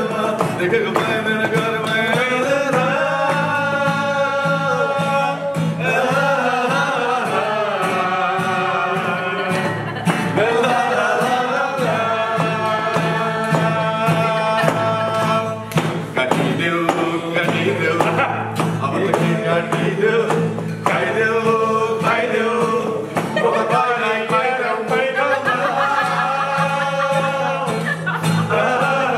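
A man singing to a strummed acoustic guitar, with hand claps keeping time.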